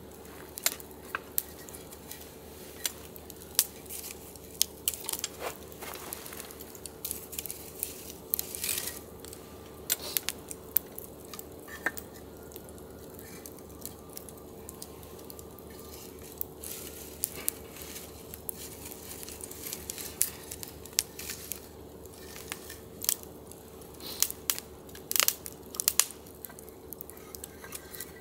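Wood fire crackling in a small brazier, with irregular sharp pops and snaps, while split firewood is handled and laid on it.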